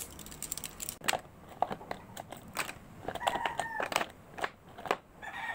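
Irregular light clicks and taps of makeup brush handles being picked up and knocked together as the brushes are sorted and gathered. A short pitched sound comes about three seconds in.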